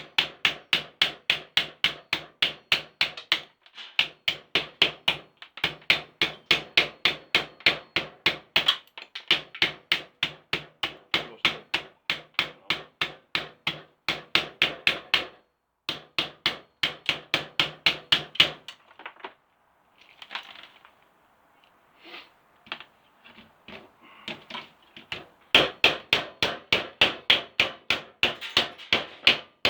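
Screwdriving tool clicking rapidly and evenly, about four clicks a second, while the screws come out of a 100 amp circuit breaker. The clicking comes in runs of several seconds with short breaks, then thins to scattered clicks before picking up again near the end.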